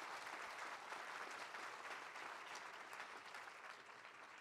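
Audience applauding, the clapping slowly dying away toward the end.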